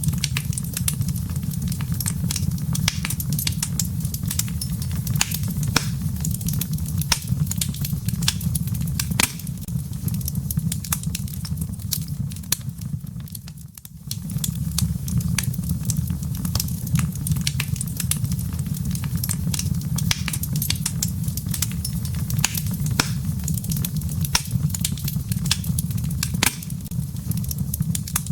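Wood fire crackling in a fireplace: many sharp pops and snaps over a steady low rumble of burning. It dips briefly about halfway through, then carries on as before.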